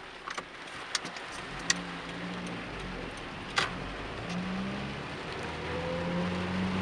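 Car engine heard from inside the cabin as the car pulls away, its pitch rising as it accelerates, then rising again later. A few sharp clicks and taps come in the first few seconds.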